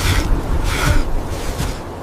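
Blizzard wind blowing hard with a heavy low rumble that dies away near the end, and three short breathy rushes about a second apart.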